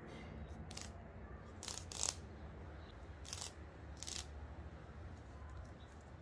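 About five short, crisp clicks and crunches at uneven intervals, the loudest about two seconds in, over a faint low background hum.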